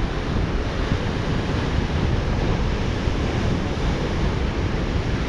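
Ocean surf breaking and washing over rocks in a steady rush, with wind buffeting the microphone.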